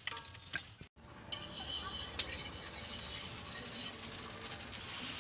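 A single sharp metal clink of kitchen utensils about two seconds in, over a steady low hiss, with a few faint clicks before it.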